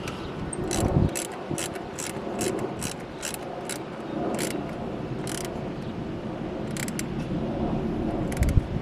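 Ratchet wrench clicking: a quick run of clicks that thins out after a few seconds, then two more clicks later on.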